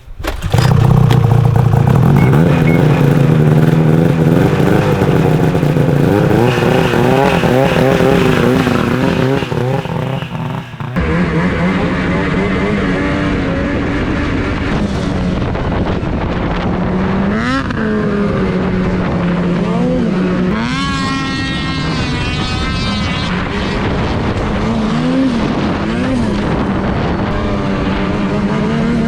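Carbureted two-stroke engine of a 2004 Ski-Doo Rev snowmobile starting up about half a second in, then running loud and uneven at idle. In the second half it is blipped several times, with short rises and falls in pitch.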